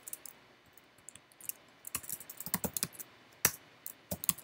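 Typing on a computer keyboard: a few scattered keystrokes at first, then a quicker run of key presses in the second half, one of them sharper than the rest.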